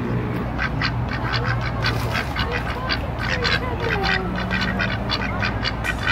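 White domestic ducks, Pekin-type with orange bills, quacking in a fast run of short calls, about four a second, stopping shortly before the end.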